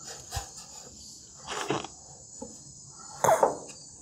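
Steady high-pitched insect chorus in the background, with a few soft knocks scattered through it.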